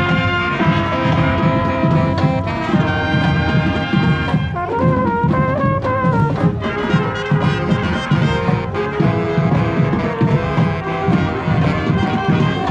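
Marching band playing a tune, its brass carrying held melody notes over a steady pulse of drums.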